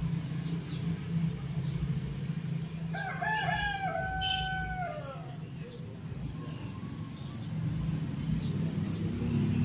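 A rooster crows once, about three seconds in, a call of about two seconds that rises, holds level and falls away at the end. A steady low hum runs underneath.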